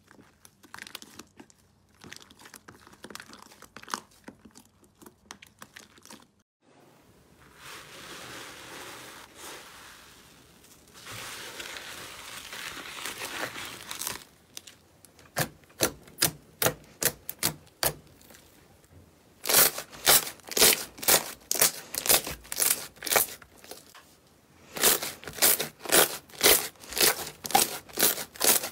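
Hands stretching, kneading and pressing slime: a soft hissing, tearing sound as it is pulled, then rows of sharp crackling pops, about three a second and loudest in the second half, as air pockets burst under the fingers.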